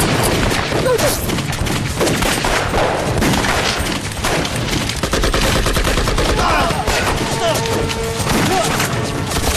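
Dense, unbroken gunfire: many rifles and machine guns firing at once in a battle, with faint shouting here and there.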